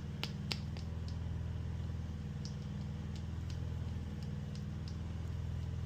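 Steady low engine-like hum in the background, with light irregular clicks from pumping the grease gun's bleed lever to let grease fill the compartment.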